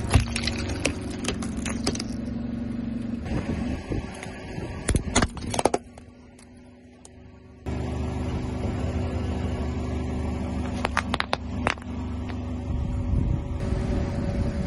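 A car engine running steadily while its tyres crush crunchy objects, giving clusters of sharp cracks and pops near the start, about five seconds in, and again about eleven seconds in. The engine sound drops away for about two seconds in the middle, then returns.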